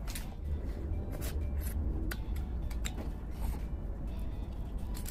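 Cooked crab shell cracking and snapping as a sauce-coated crab is broken apart by hand, scattered sharp clicks over a steady low hum.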